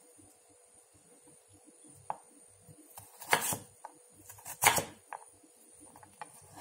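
Kitchen knife chopping through stacked carrot slices onto a wooden cutting board: two loud crunching cuts just over a second apart in the middle, with a few lighter taps around them.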